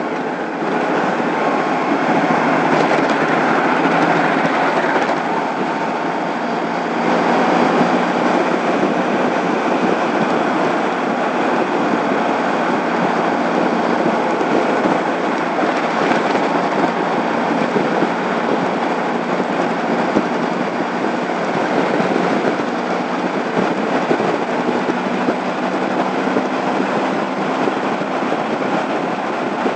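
Steady wind and road noise from a Honda ST1100 motorcycle cruising at freeway speed, with its V4 engine running evenly underneath.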